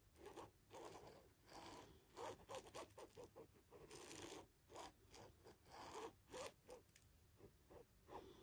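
Ballpoint pen tip dragged over fabric, tracing a line: faint, irregular scratchy strokes, several a second.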